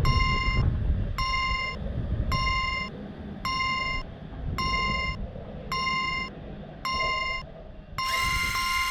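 Railroad crossing alarm ringing with a bell-like strike about once a second over the low rumble of a passing train. Near the end the strikes give way to a steady ringing tone.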